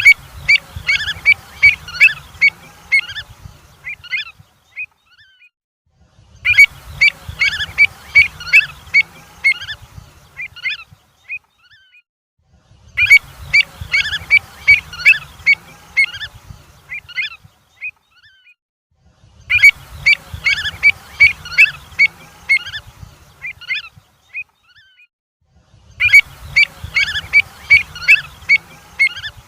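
Avocet calls: rapid, sharp, loud notes, about four or five a second, in bursts of about four seconds, with the same burst recurring about every six and a half seconds. A low rumble runs under each burst.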